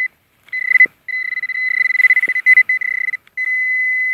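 Metal-detecting pinpointer giving a high, steady electronic beep: a couple of short beeps, then an almost unbroken tone with brief gaps, the alarm that it is right on top of a buried metal target.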